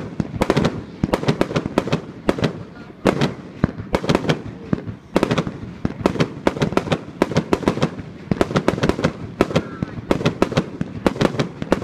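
New Year's Eve fireworks and firecrackers going off in a dense, irregular barrage of sharp bangs and cracks, several a second and often overlapping.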